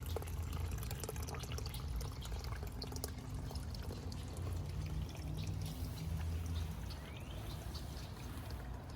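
Creek water running and trickling, with many small clicks and splashes over a low rumble.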